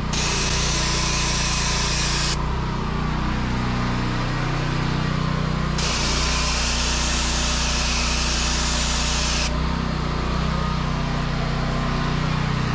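Petrol pressure washer engine running steadily, with the hiss of its water jet from a 25-degree fan nozzle blasting sandstone paving close up. The jet runs in two spells, about two seconds at the start and about four seconds from around six seconds in, and cuts off between them while the engine keeps running.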